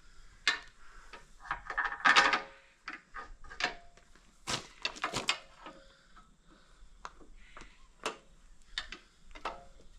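Irregular knocks and clanks of a small piece of metal being bent and straightened, with one ringing clang about two seconds in.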